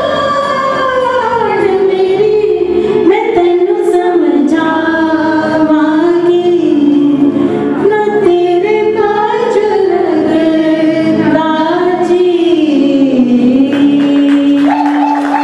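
Two women singing a Punjabi song in duet, the melody winding down and ending on a long held note. Applause starts near the end.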